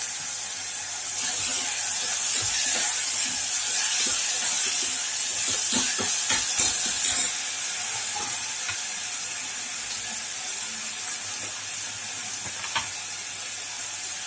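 Onion, tomato and ginger-garlic paste sizzling as they sauté in hot oil in a small pressure cooker, with a spoon scraping and stirring the pot. The sizzle is louder in the first half, and there is a single click near the end.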